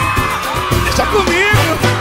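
Live pagode samba band music: percussion keeps a steady beat under a melody line that glides up and down.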